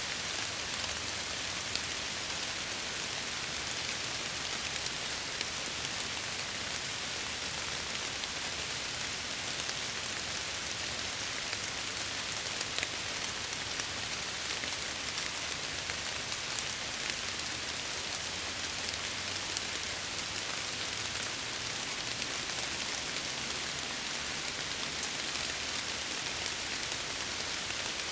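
Steady rain falling and pattering against window glass, with scattered individual drops ticking.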